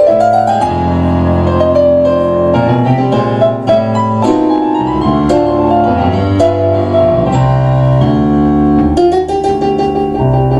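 Piano duet on two digital keyboards, one a Kawai MP6 stage piano, playing a tango with sustained bass notes under quick chords and runs. The passage starts on an upward run.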